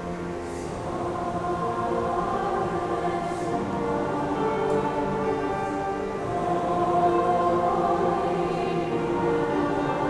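High school freshman choir of mixed boys' and girls' voices singing held chords in a slow passage.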